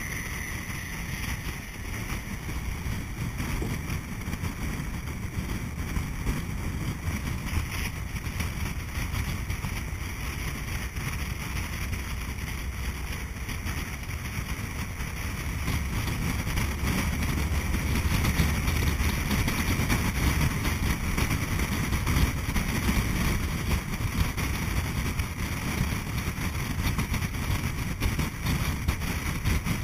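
MyCiTi city bus driving, heard from a camera mounted on its outside: a steady rush of wind on the microphone and tyre and road noise, with the bus's engine running low underneath. It grows louder about halfway through.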